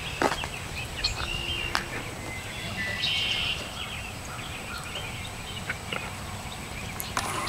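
Outdoor ambience: a low steady wind rumble with scattered sharp clicks and a few short, high chirps.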